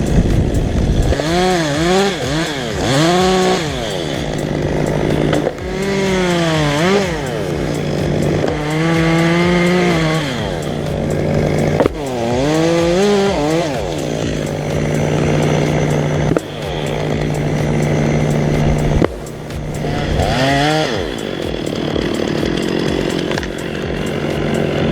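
Gas chainsaw engine revving up and down over and over, dropping back between revs to a steady idle, with a few abrupt breaks in the sound.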